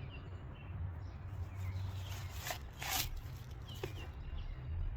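Brief rustle about three seconds in as the sneaker is handled, over a low steady hum, with a few faint high chirps.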